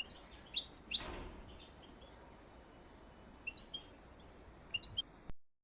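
Small songbirds chirping: a quick run of short, high calls in the first second or so, then two brief clusters of chirps later on, over a faint steady hiss. The sound cuts off abruptly near the end.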